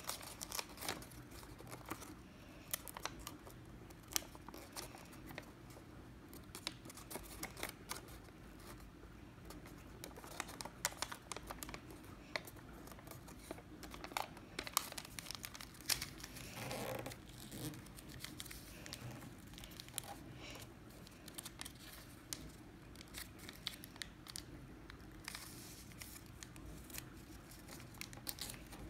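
Paper being folded and creased by hand: a continual run of soft crinkles and small crackles, with a slightly longer rustle about halfway through.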